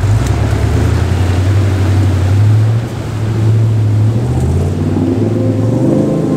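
1975 Toyota Land Cruiser's engine revving up and down under load as it drives out of a muddy, water-filled rut. Music fades in near the end.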